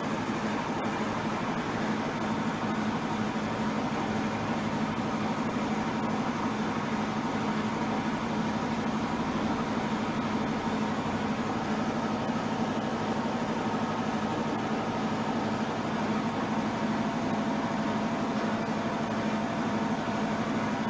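A steady mechanical hum, unchanging in level and pitch.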